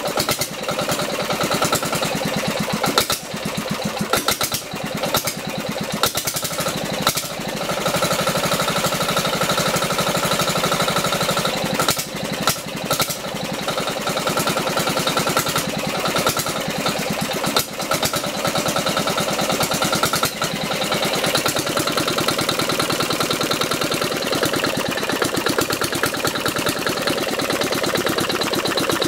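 Niigata NGT5 generator's diesel engine running steadily, its firing pulses even, with irregular sharp knocks over the first few seconds and a few more later. About a quarter of the way in the sound gets slightly louder and a steady high tone joins in.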